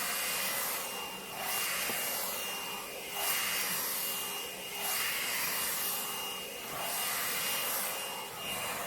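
Inglam hot-air blow dryer brush running, a steady rush of air with a high motor whine. The air noise swells and dips about every one and a half seconds as the brush is pulled through hair.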